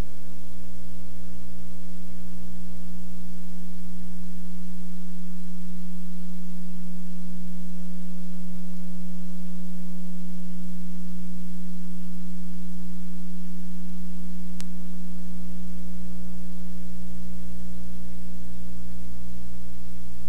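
Steady electrical mains hum: a loud, unchanging low buzz with no speech over it. A single faint click about three-quarters of the way through.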